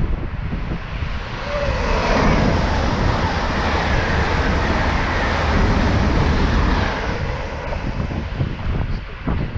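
Electric passenger train passing through the station on the through line: a rush of wheels and air builds, stays loud for several seconds as the coaches go by, and then fades. A falling whine can be heard as the train comes past.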